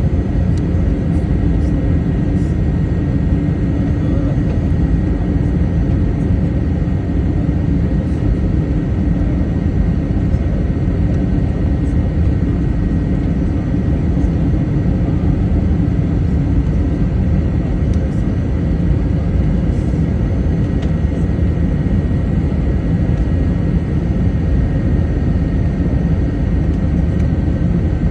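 Airliner cabin noise during the descent: a steady rumble of jet engines and rushing air, with a faint high steady tone over it.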